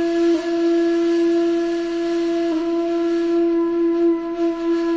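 Flute holding one long, steady low note that wavers briefly twice, early on and about halfway through.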